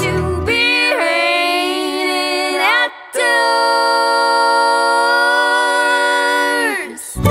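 A string band's singers singing in harmony without instruments: the instruments drop out about half a second in and the voices hold two long chords, the second lasting about four seconds. The instruments come back in right at the end.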